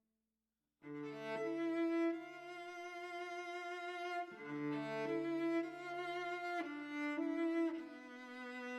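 Instrumental background music of long held notes, changing pitch every second or so. It starts after a brief silence about a second in.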